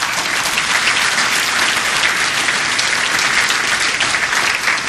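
Audience applauding steadily: dense, sustained clapping from a large crowd.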